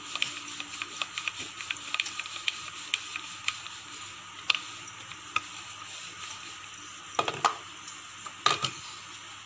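Rolling pin working naan dough on a floured wooden board: a run of light, irregular clicks and taps, with a few louder knocks, mostly near the end as the dough is lifted and turned.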